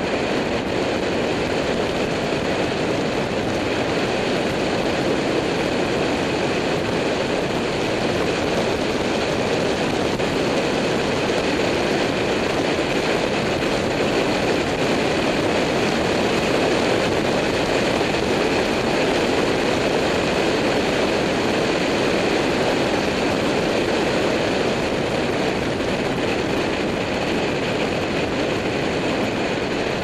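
Steady rush of wind and road noise on a bike-mounted camera's microphone as a road bike rides along at speed.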